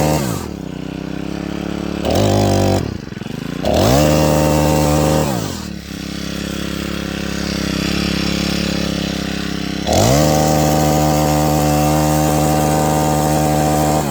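Senix four-stroke gas chainsaw engine being revved and let back down to idle several times. It is at full throttle at first and drops to idle about half a second in. It is blipped up around two and four seconds, idles for about four seconds, then is held at high revs from about ten seconds until it drops again at the end.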